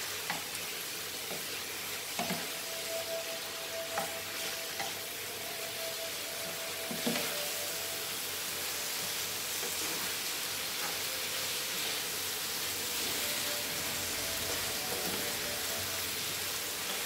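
Tomato-onion masala with ground spices sizzling steadily in a frying pan as it cooks down. A spoon stirring it knocks against the pan a few times in the first half.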